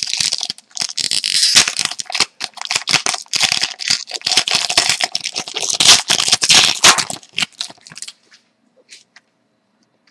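Foil trading-card pack wrapper being torn open and crinkled by hand: a dense crackling that stops about eight seconds in, followed by a few faint clicks.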